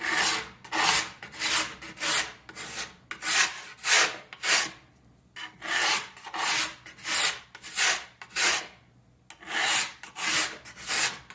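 A sharpening stone held flat and drawn along the steel edge of a skibike ski in one direction, giving a gritty scrape about twice a second, with two short pauses, one around the middle and one near the end. The strokes are sharpening the dulled edge.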